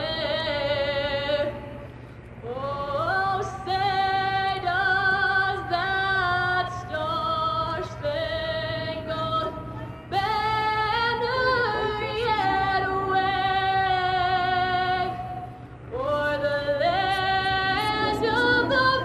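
Women singing a song with long held notes and gliding pitch, pausing briefly about two seconds in and again near the end; a steady low hum runs underneath.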